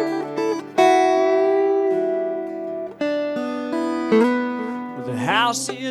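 Acoustic guitar playing ringing chords as the instrumental lead-in of a country-folk song, with the chords changing a few times; singing comes in near the end.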